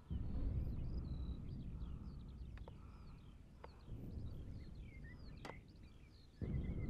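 Birds chirping over a low, steady outdoor rumble, with a few faint clicks; the rumble swells near the end.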